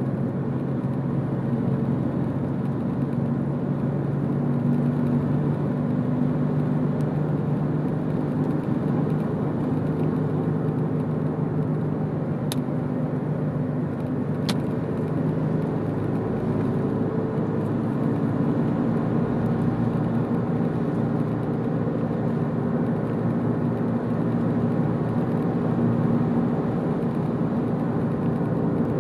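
Car driving along a road: steady tyre and road noise with a low engine drone that drifts a little in pitch.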